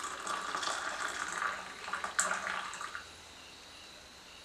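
Hot tea poured from an aluminium saucepan into a steel tumbler, a steady splashing stream that thins and stops about three seconds in, with a short click about two seconds in.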